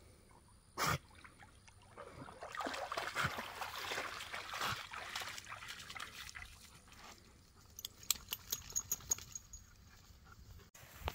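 A wolf wading through a shallow muddy pond: water sloshing and splashing around its legs as it moves through and climbs out onto the bank. A single knock comes about a second in, and a quick run of sharp ticks follows after it leaves the water.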